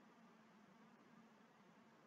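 Near silence: faint microphone hiss and a low steady hum.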